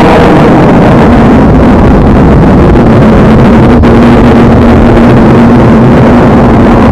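Custom-edited kaiju monster sound effect: a loud, harsh, continuous distorted rumble with a faint held tone coming in about two seconds in and a brief dropout near the middle.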